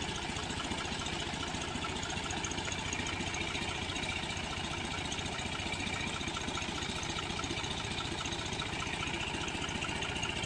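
John Deere farm tractor's diesel engine idling steadily, with a faint regular tick.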